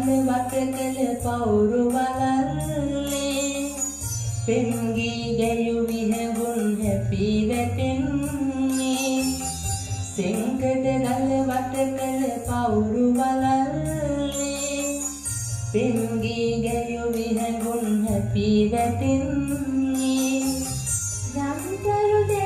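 A man singing a Sinhala song into a microphone over a backing track with a steady jingly percussion beat; near the end a woman's voice takes up the next phrase at a higher pitch.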